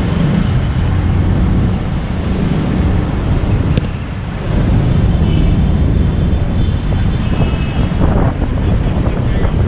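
Engine and road noise of a moving vehicle in city traffic: a steady low rumble that dips briefly about four seconds in.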